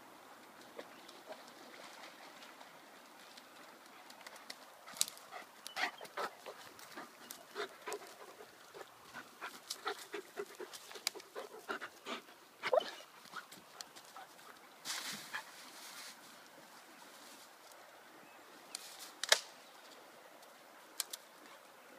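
A White Swiss Shepherd dog moving about close by, with short breathy panting and sniffing sounds among many scattered clicks and rustles, busiest in the middle. A few sharp cracks stand out near the end.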